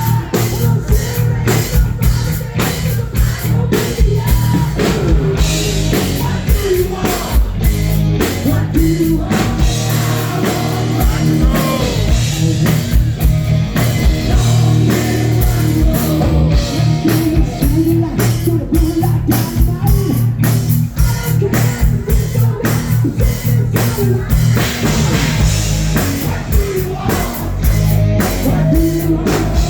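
Live rock band playing loudly, with a steady drum beat, guitar and bass under a singer's voice.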